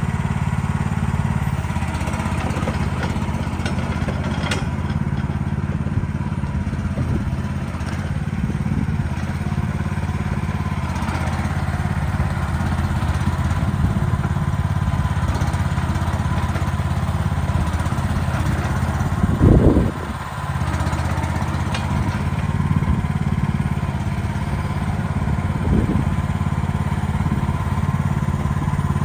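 Gas engine of a Lanty LAT-13 mini excavator running steadily while the machine is operated. A loud clunk comes about two-thirds of the way through, and a lighter one comes near the end.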